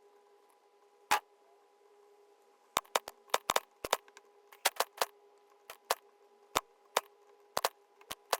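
Sharp clicks of a computer mouse during editing: a single click about a second in, then a run of irregular clicks, some in quick pairs, from nearly three seconds on. A faint steady electrical hum runs beneath.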